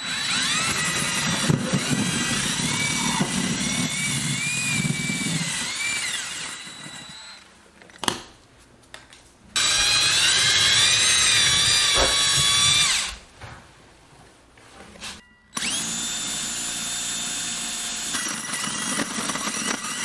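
DeWalt cordless drill driving a 4 1/4-inch hole saw through a wall, in three long runs with short pauses between, its motor whine wavering up and down as the saw bites.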